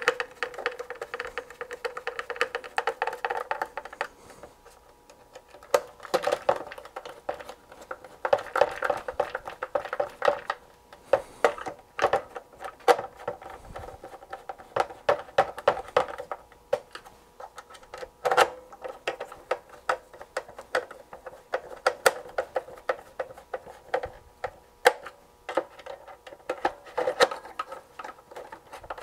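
Screwdriver turning screws into the plastic back case of a Sony TFM-7350W portable radio, with irregular clicks, ticks and knocks as the tool and case are handled.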